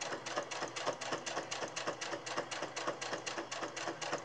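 Electric domestic sewing machine stitching steadily through fabric: a rapid, even ticking from the needle mechanism over a low motor hum.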